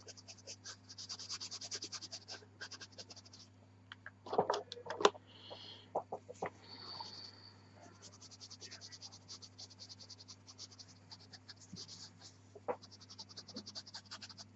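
Pastel pencil scratching on velour paper in quick, short strokes as a leaf is shaded, over a faint steady hum. A brief, louder noise comes a little after four seconds in.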